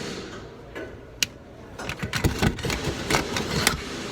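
Loose shock absorber mount clunking and rattling as the shock is shaken by hand: a sharp click about a second in, then a run of knocks. The mounting was not tightened, the cause of the knocking under the vehicle over humps.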